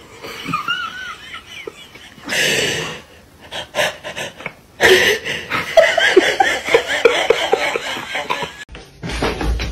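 People laughing hard in quick repeated bursts for several seconds, after a short noisy burst a little over two seconds in.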